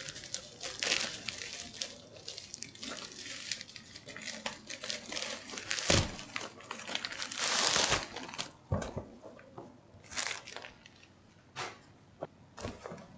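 Foil-lined bubble mailer bag crinkling and rustling as a cardboard box is worked out of it, with a sharp thump about six seconds in and a long loud rustle just after. A few scattered knocks of the box being handled follow near the end.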